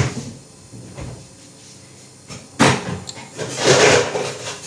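A freezer being opened to take out frozen blueberries: a click at the start, a sharp knock about two and a half seconds in, then a longer scraping rattle.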